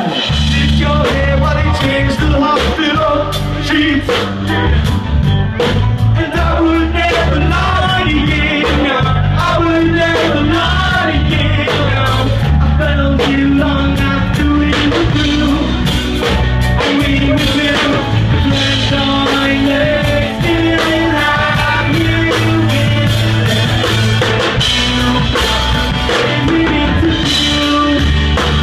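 Live rock band playing loud: drum kit, guitars and bass, with a lead singer at the microphone.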